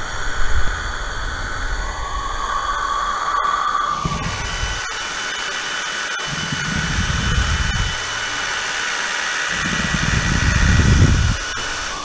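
Drill spinning a die grinder bit to grind out a brake-cable clamp so a thicker cable housing will fit: a steady motor whine with a deeper, rougher grinding in three spells, about four, six and ten seconds in, as the bit is worked around the hole.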